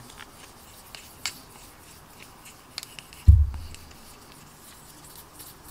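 Faint rubbing and small clicks of a fine polishing stick worked over a clear plastic model-kit canopy to polish out the seam, with one dull thump about three seconds in.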